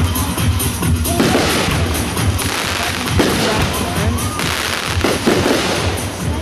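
Fireworks going off in a dense, continuous barrage of crackles and pops, with music playing alongside.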